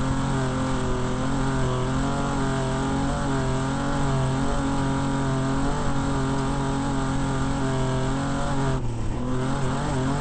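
Desert off-road race vehicle's engine running hard at a fairly steady pitch, its speed wavering slightly, with a brief dip about nine seconds in.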